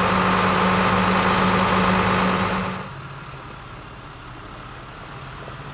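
Case IH MXM140 tractor's six-cylinder diesel engine running steadily at idle. About halfway through, the sound drops suddenly to a much quieter, lower hum.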